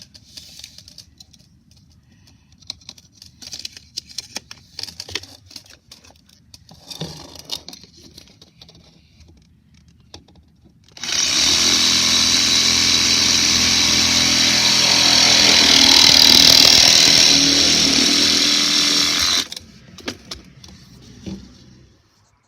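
Power saw cutting PVC drain pipe: a loud, steady run of about eight seconds that starts abruptly about eleven seconds in and cuts off sharply. Lighter knocks and scrapes of handling come before and after it.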